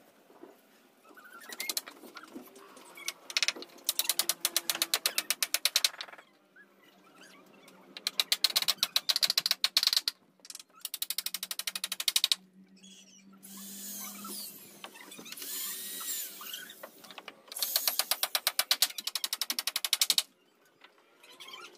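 A power tool, likely a drill or screw driver, running in several bursts of about two seconds each with a fast, even rattle, as in driving screws into boat timber. Faint birdsong comes in the pauses.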